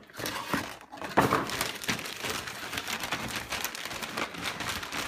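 Plastic wrapping and cardboard packaging being handled: a dense, continuous run of small crinkles and crackles.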